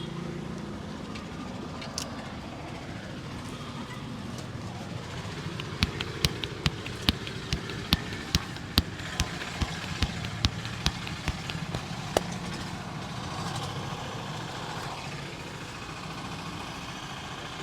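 A barber's hands striking in a quick run of about sixteen sharp slaps, two to three a second, starting about six seconds in and stopping about twelve seconds in: rhythmic percussive tapping as part of a head and back massage. Steady street traffic noise runs underneath.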